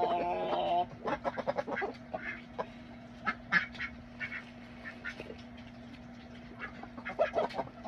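Backyard poultry calling while being hand-fed bread: a drawn-out pitched call at the start, then a quick run of short calls, and more calls near the end.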